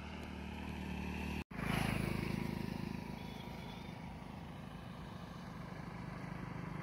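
Motorcycle engine running steadily while riding along a road. The sound cuts out for an instant about a second and a half in, then carries on.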